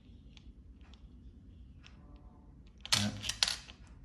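Light clicks of clam shells being handled and fitted together, with a louder clatter of shell on shell about three seconds in.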